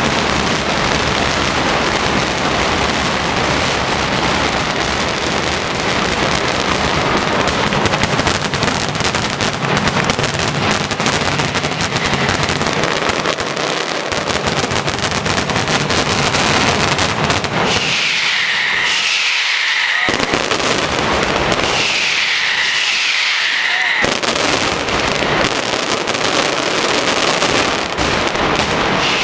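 A mascletà's closing ground barrage (the terratrèmol): firecrackers going off in an unbroken, loud rapid-fire roll. In the second half it is broken twice by short gaps in which high falling tones are heard.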